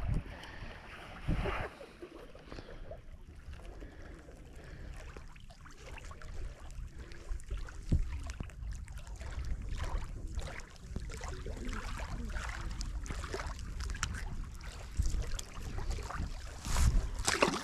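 Wind rumbling on the microphone, with scattered small clicks and handling knocks. There is a sharper knock about eight seconds in and a louder noisy stretch near the end.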